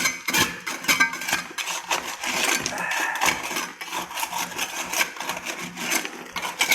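Metal hand tools knocking and scraping in quick irregular strokes against broken concrete and rubble, as a floor is chipped open to reach a buried leaking water pipe.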